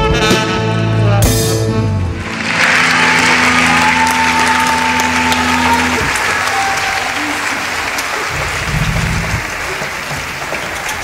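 A live band's piece ends on a final chord about two seconds in, then an audience applauds, the clapping slowly fading. A low held note lingers under the applause until about halfway.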